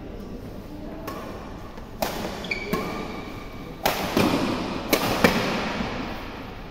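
Badminton rally: about six sharp racket hits on the shuttlecock, echoing in a large hall. There is a brief squeak, a shoe on the court floor, a couple of seconds in.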